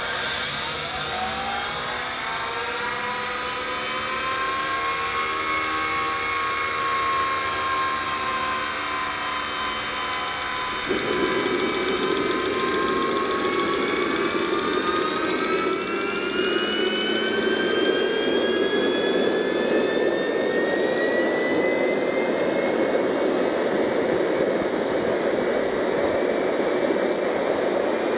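Small home-built jet engine with a see-through casing starting up: its turbine whine climbs slowly in pitch as it spools. About eleven seconds in, a louder rushing noise sets in abruptly under the whine and keeps going.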